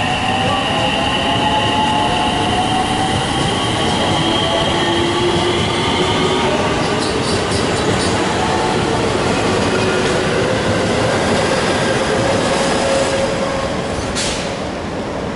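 Electric commuter train running past along the platform at close range: a loud, steady running noise with high whining tones that slowly shift in pitch. The highest whine fades out about six seconds in. The sound drops abruptly near the end.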